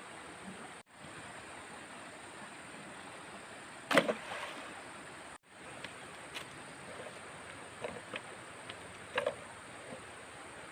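Sharp knocks and light clicks from fan parts and hand tools being handled during a repair, over a steady hiss. The loudest knock comes about four seconds in, followed by a few lighter taps.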